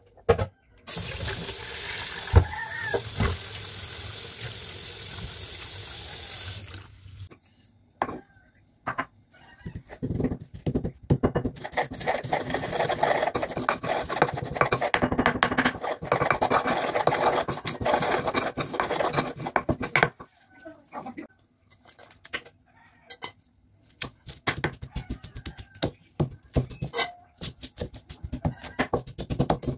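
Tap water running into a stainless steel sink for about six seconds. Then a stone pestle grinds and crushes whole spice seeds on a flat stone mortar (ulekan), a dense rough scraping that lasts several seconds. It thins out to scattered knocks and scrapes near the end.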